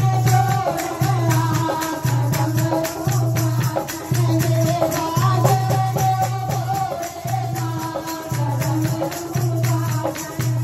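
A group of women singing a Hindu devotional bhajan into microphones, with hand-clapping and percussion keeping a steady beat.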